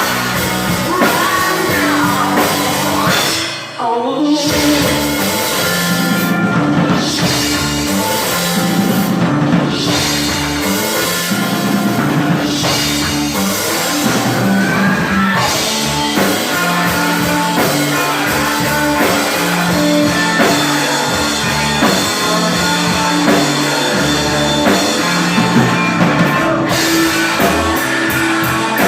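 Rock music with a drum kit and singing, loud and steady, with a brief drop about four seconds in.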